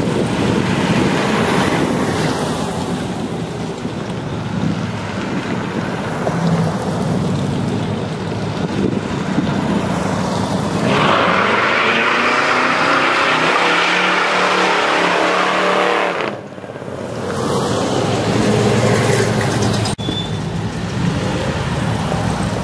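Cars driving past one after another, engines running. About eleven seconds in one car accelerates hard, its engine note rising for several seconds, then the sound cuts off suddenly before the next cars come by.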